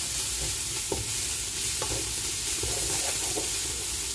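Coriander leaves, garlic and onion sizzling as they sauté in a large stainless steel pot, stirred with a wooden spatula that gives a few light scrapes against the pot.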